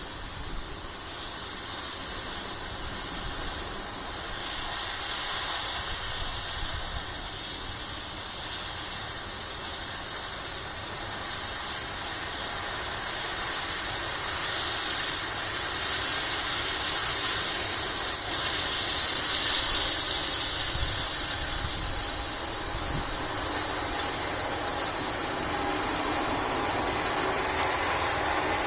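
Corn-harvesting machinery running steadily, a broad mechanical hiss and rumble that grows louder toward the middle and then eases slightly.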